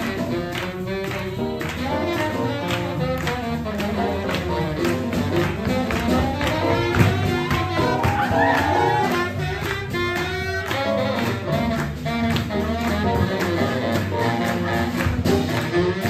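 Live swing jazz band playing an up-tempo tune, with saxophone and piano over a steady beat.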